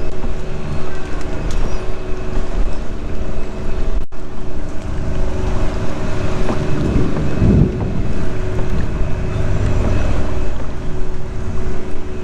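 Wind buffeting the microphone over open water, with a steady engine drone underneath; the sound drops out for an instant about four seconds in.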